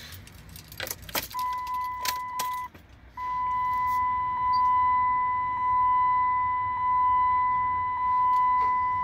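Keys jingling and clicking in the ignition, then the Ram 2500's dashboard warning chime sounding with the key on and the engine not yet started: a steady high electronic tone that pulses about once every 1.2 seconds, with a short break about a second after it starts.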